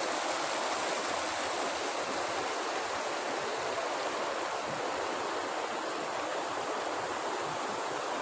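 Fast, muddy river rushing and splashing over stones and boulders: a steady roar of turbulent water. The river is running brown with sediment after a volcanic flash flood (galodo).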